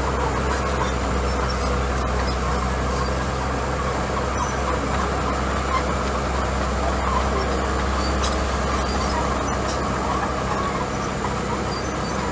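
Diesel engine of a small crawler bulldozer running steadily under load as it pushes gravel.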